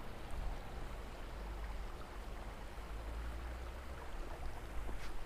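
Shallow, rocky stream running steadily: an even rush of water with no distinct events.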